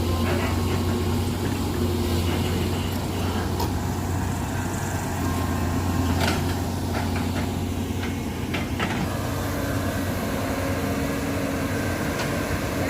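Excavator's diesel engine running steadily with a deep hum, with a few brief sharp knocks scattered through.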